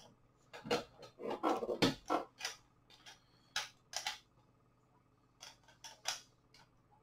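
Hard plastic toy pieces being handled, giving a dozen or so short, irregular clicks and knocks, with a quick cluster of them about a second and a half in.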